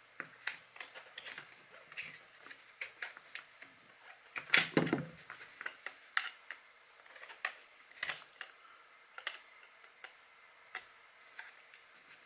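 Small metal clicks and scrapes of an air rifle's back plug and hammer spring being worked out of the action, which comes out roughly. There is one louder clatter about four and a half seconds in.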